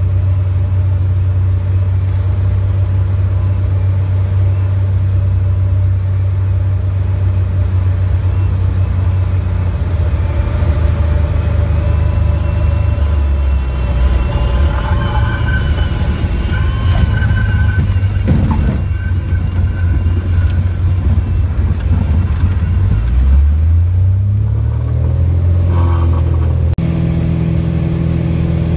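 Cabin noise of a Cessna Hawk XP: the engine and propeller drone steadily during the approach and landing roll, with a brief knock about 18 seconds in. The engine pitch then rises over a few seconds, and near the end a steady cruise drone follows a cut.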